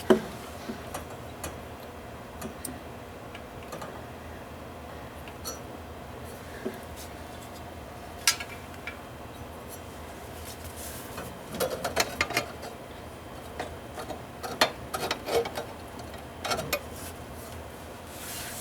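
Scattered light clicks and knocks from something being handled, over a steady low hum; the clicks come thicker in the second half.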